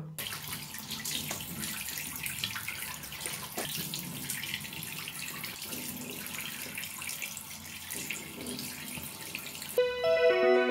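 Tap water running into a washbasin as hands are washed under it. Piano music comes in just before the end, louder than the water.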